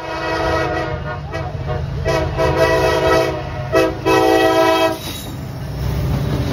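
Diesel locomotive's air horn sounding a chord in three main blasts, the last ending about five seconds in, over the low rumble of the moving train.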